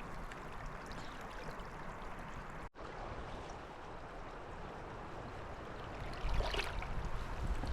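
Mountain river flowing steadily, a constant rush of moving water. It breaks off for an instant about a third of the way through, then carries on, growing louder and more uneven near the end.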